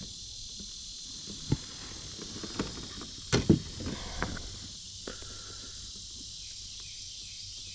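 Steady high-pitched insect chorus droning, with a few scattered soft knocks and clicks.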